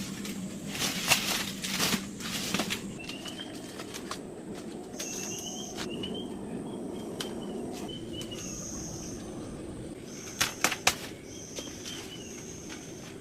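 Outdoor ambience with a bird's repeated short arched calls and a few short steady high-pitched buzzes. Sharp clatters and rustling come in the first few seconds, and a quick cluster of loud knocks about ten and a half seconds in.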